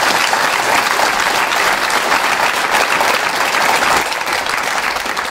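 Audience applauding: dense, steady clapping that thins out in the last second or so.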